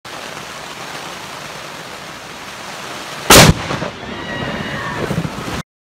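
Steady rain, then about three seconds in a single deafening crack of thunder from a lightning strike very close by, loud enough to overload the microphone. Rain and a faint high tone follow it.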